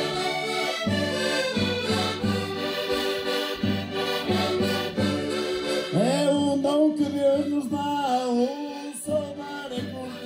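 Several diatonic button accordions (Portuguese concertinas) playing a lively folk tune in full chords over a steady bass drum beat. About six seconds in, men's voices join in singing.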